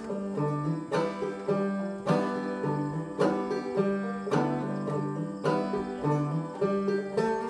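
Several clawhammer banjos playing an old-time tune together, with a steady, even rhythm of plucked notes.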